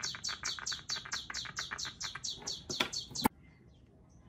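A bird trilling: an even, rapid run of short high chirps, about five a second. It cuts off abruptly with a sharp click near the end, leaving faint room noise.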